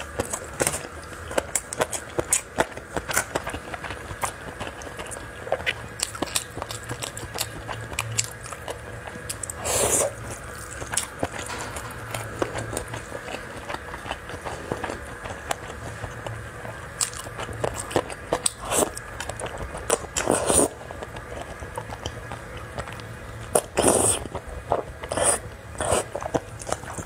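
Close-miked eating of noodles: wet chewing and sharp mouth clicks throughout, with a few short, louder slurps of noodles about ten, twenty and twenty-four seconds in.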